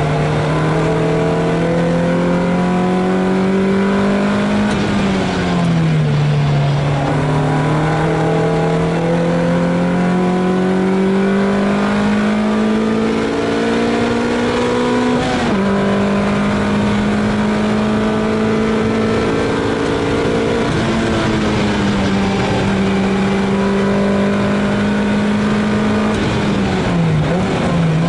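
Lotus Elise S2's four-cylinder engine heard from inside the cockpit at racing speed, its note climbing slowly under load over long stretches and dropping four times, about 5, 15, 21 and 27 seconds in.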